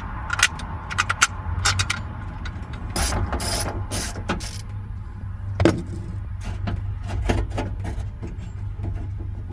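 Irregular clicks and metallic knocks of door handle parts and a bracket being fitted back inside a Chevy Express van's door, with one louder clunk about halfway through.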